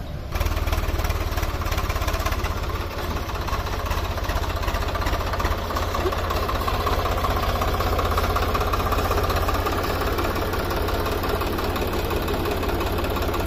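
Swaraj 744 FE tractor's three-cylinder diesel engine running steadily under load, pulling a heavily loaded sugarcane trolley, with a deep, even rumble. It comes in abruptly right at the start.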